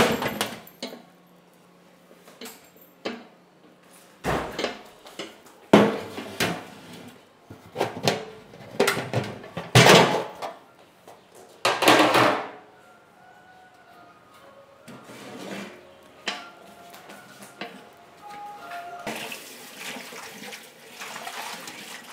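Kitchen clatter of pots, dishes and utensils: scattered knocks and clinks with a few louder bursts. Water starts running from a tap near the end.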